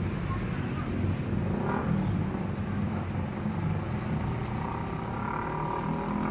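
Steady low mechanical rumble, like a running engine, with a constant hum.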